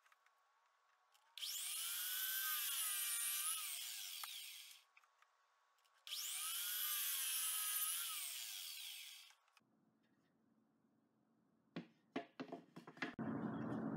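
A 12-inch miter saw makes two cuts through solid wood, each about three and a half seconds long: the motor's whine bends in pitch as the blade goes through the board, then fades as it spins down. A few light knocks near the end as the workpiece is handled.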